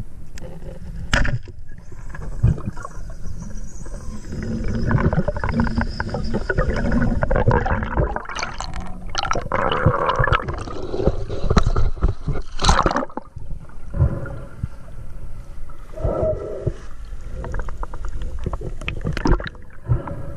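Underwater sound through a diver's camera housing: a muffled gurgling wash of water, with a few sharp clicks, the clearest about a second in and again around twelve seconds in.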